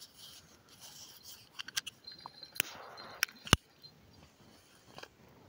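Handling noise of a phone camera being carried: a few light clicks, then three sharp knocks, the loudest about three and a half seconds in, with a faint thin high ring held between them.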